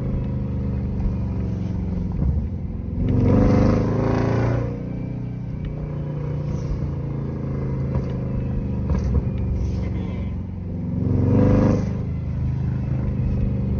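2010 Camaro SS 6.2-litre V8 through a Borla ATAK exhaust, idling steadily. Twice the engine revs up briefly and drops back to idle: once a few seconds in, and again near the end.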